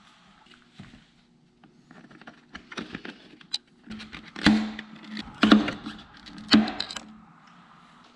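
Plastic motorcycle body panels being handled and snapped into place: scattered light clicks and taps, with three louder knocks in the middle, over a faint steady low hum.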